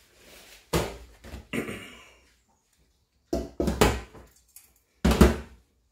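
Several dull thumps of a steel colander full of boiled bottle gourd being knocked and shaken against a stainless steel sink to drain off the cooking water.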